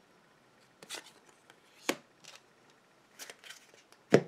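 Pokémon trading cards being handled and set down on a tabletop: a few short taps and slides, the loudest tap near the end.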